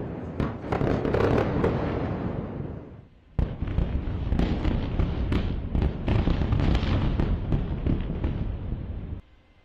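Explosions after an airstrike: a continuous rumble packed with rapid sharp cracks and pops, like secondary blasts with burning debris flying. It fades about three seconds in, starts again abruptly, and cuts off suddenly near the end.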